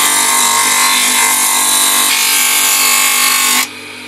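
A wooden sheath blank is pressed against a spinning coarse-grit sanding disc, making a loud, steady abrasive hiss over the hum of the motor. About three and a half seconds in, the wood is lifted off and only the motor keeps running.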